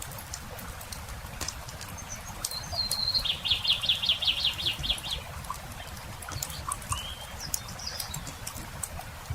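Campfire crackling with scattered sharp pops over a low steady rumble. A songbird cuts in with a rapid trill of about a dozen high repeated notes, the loudest sound, then gives a short chirp a few seconds later.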